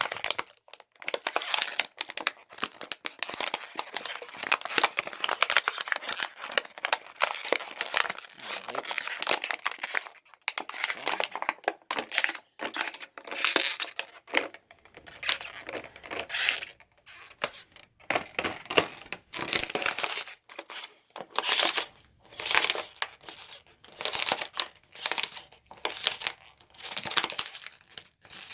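A plastic bottle being chewed by a dog, crinkling and crackling in irregular bursts with short pauses.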